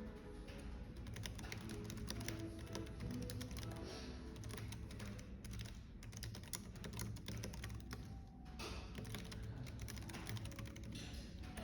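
Rapid, irregular typing on a computer keyboard, key clicks tumbling over one another, with soft background music and a low cafe hum beneath.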